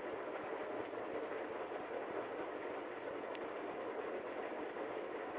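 Steady rushing background noise, even in level throughout, with one faint click a little past three seconds in.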